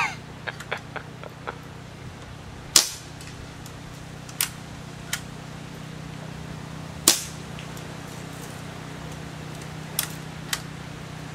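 Daisy PowerLine 1200 CO2 BB pistol firing: a string of sharp pops, irregularly spaced, the loudest two about three and seven seconds in, over a steady low hum.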